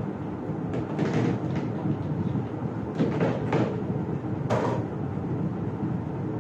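Hard plastic basket parts knocking and clattering as they are handled and set into a plastic basket, with a few sharp knocks about one, three and four and a half seconds in, over a steady low hum.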